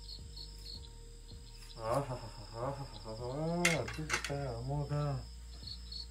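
Crickets chirping in a steady rhythm of short high pulses, a few a second. A man's voice sounds for about three seconds in the middle, louder than the crickets, with a couple of sharp clicks.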